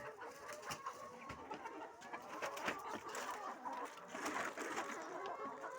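A flock of laying hens clucking and calling over one another, with many sharp clicks scattered throughout.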